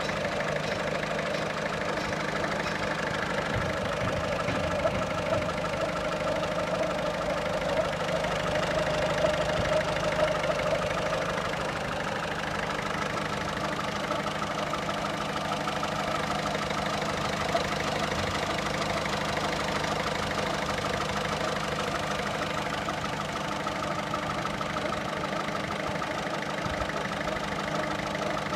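1.6 HDi 90 hp four-cylinder turbodiesel engine idling steadily, making a noise that the owner finds abnormal.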